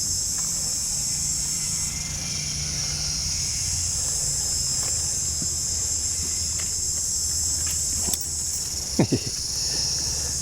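Steady, high-pitched chorus of tropical insects, with a steady low hum beneath it and a brief falling sound about nine seconds in.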